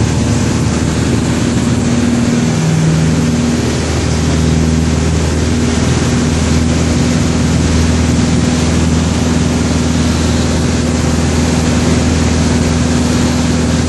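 Piper PA-28 light aircraft's piston engine and propeller running steadily during takeoff, heard loud inside the cockpit, with a steady low drone whose tone shifts slightly a few seconds in.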